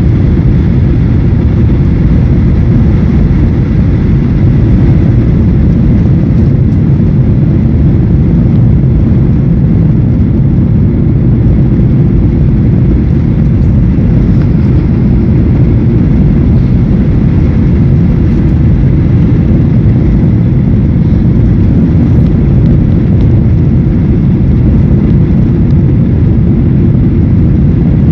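Steady cabin noise inside a Boeing 737-800 on its landing approach: a loud, even low rumble of its CFM56-7B engines and the airflow, with no change in pitch or level.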